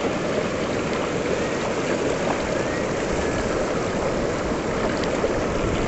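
River water rushing in a steady, even flow.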